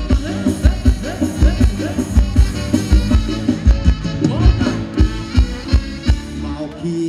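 Live Thai ramwong band music, upbeat, with a steady drum beat.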